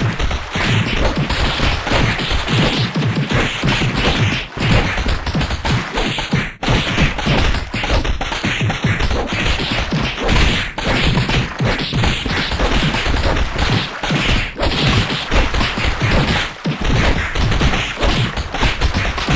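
Loud, nonstop barrage of sneezes piled on top of one another with hardly a gap, only dipping briefly a few times.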